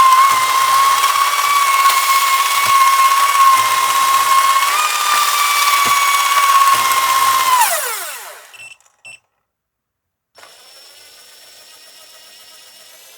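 Small DC motor in an over-volted toy airplane whining at very high speed, a steady high pitch that steps up slightly about five seconds in. It then winds down quickly in a falling glide and stops. After a moment of silence a much fainter steady hum with several tones begins.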